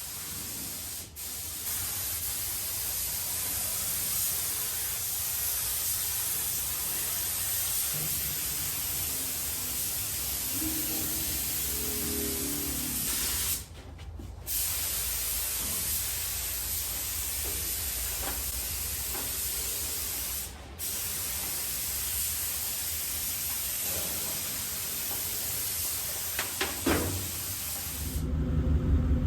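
Clear coat being sprayed: a steady spray hiss that stops briefly three times, as a trigger is let go and pressed again. Near the end a low rumble starts.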